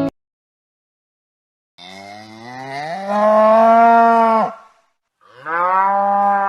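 Cow mooing twice, starting about two seconds in: a long moo that rises in pitch, then a shorter one.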